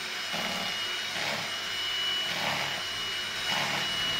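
Electric hand mixer running on its turbo setting, beaters whisking eggs and sugar to a froth in a plastic bowl: a steady high motor whine with a churning sound that swells and eases about once a second.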